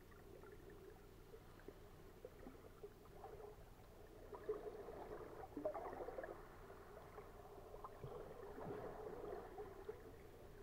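Faint, muffled underwater water movement heard through a waterproof camera housing, with scattered small crackles and a brief swell of louder sloshing in the middle.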